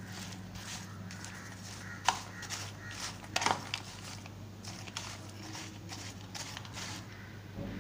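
Metal spoon tossing crisp French fries in a bowl: irregular clicks and taps of spoon against bowl and fries, the loudest about two and three and a half seconds in, over a steady low hum.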